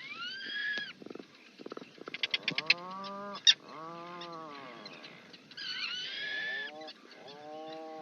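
Auk calls: low drawn-out calls that rise and fall in pitch, two in the middle and two near the end, with higher rising whistles at the start and again about two-thirds in, and rapid clicking between them.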